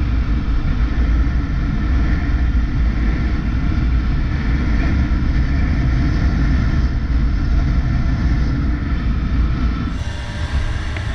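Suzuki Bandit 600 motorcycle's inline-four engine running steadily at road speed, with wind rush on the bike-mounted camera's microphone. The engine note eases slightly near the end.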